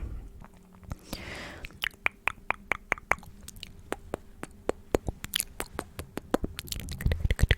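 ASMR mouth sounds: after a short hiss about a second in, a long run of sharp, irregular mouth and tongue clicks that come faster and closer together near the end.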